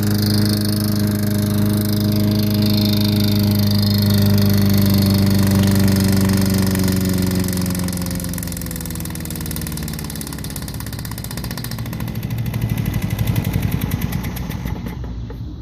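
Self-propelled lawnmower engine running badly with a knock, then dying. Its steady note falls in pitch from about halfway through, breaks into uneven chugging pulses, and stops near the end: an engine seizing up, run with its oil cap left loose.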